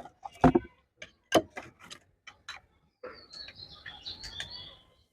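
Handling of a plastic mini travel fan and its packaging. First comes a series of sharp plastic clicks and taps, the loudest about half a second in. About three seconds in, a softer rustling scrape with faint squeaks follows.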